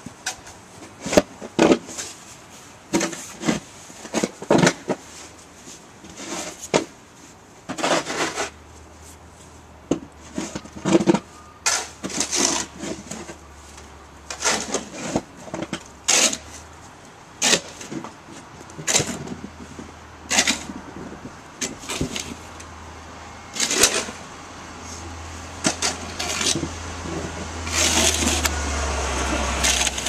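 Irregular scrapes and knocks, roughly one every second, with a low engine hum that comes in partway through and grows louder near the end.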